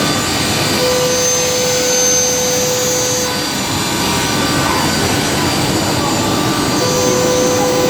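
Vertical CNC boring and drilling machine running with a steady, dense mechanical noise. Twice a steady whine sets in and holds for about two and a half seconds.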